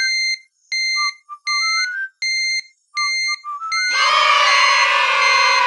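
Children's-video jingle: short electronic beeps repeating about twice a second, with little rising runs of short notes between them. About four seconds in, a louder, fuller sustained sound effect comes in over them.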